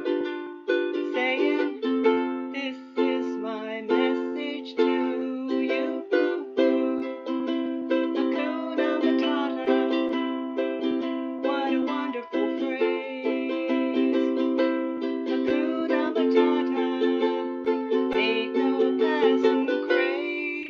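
Ukulele strummed in a steady rhythm, playing chords with no singing.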